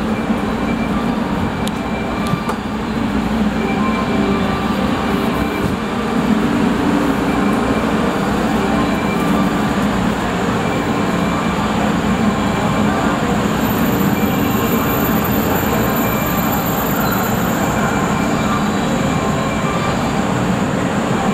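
381 series electric train moving slowly past along a station platform: a steady, loud rumble of motors and wheels on the rails.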